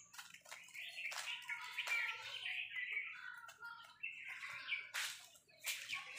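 Small birds chirping and twittering, with a few sharp clicks, the loudest about five seconds in.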